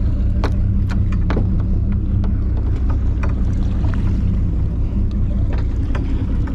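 Fishing boat's engine running steadily with a low, even drone. A few sharp clicks and taps in the first second and a half come from handling the hooked fish and line at the rail.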